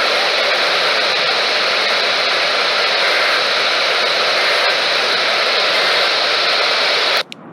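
Loud, steady radio static hiss that cuts off abruptly near the end.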